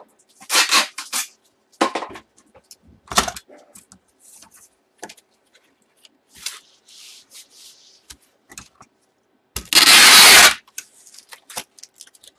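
A cardboard comic box being handled and taped shut: scattered rustles, scrapes and knocks, then, near the end, a loud rip of packing tape pulled from a tape gun, lasting about a second.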